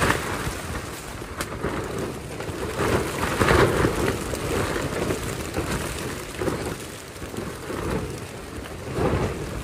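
Strong wind gusting against a backpacking tent and its tarp, with rain on the fabric; the noise swells and eases, loudest about three and a half seconds in.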